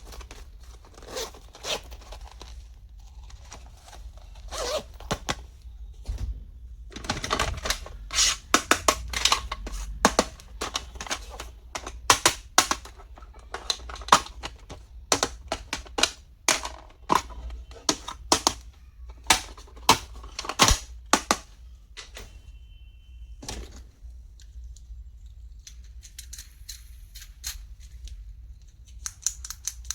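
Small plastic stationery items being handled and unpacked: a long run of sharp clicks and taps, thickest from about seven to twenty-one seconds in, with lighter rustling near the end.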